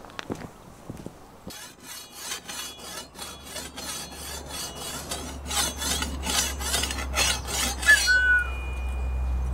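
Machete being sharpened by hand: rapid, rhythmic scraping strokes along the steel blade, several a second, growing louder partway through and stopping near the end.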